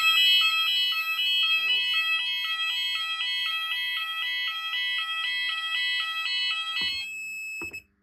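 Fire alarm sounders on a Gent Xenex conventional panel sounding a fast alternating two-tone alarm, set off by a Gent optical smoke detector going into alarm on test smoke, which shows that the new detector works. The alarm stops about seven seconds in, one high tone lingering briefly.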